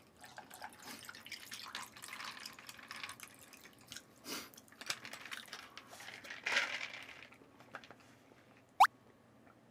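Still lemonade poured from a plastic bottle into a cup of ice, splashing and trickling unevenly over the ice. A single short, loud rising squeak comes near the end.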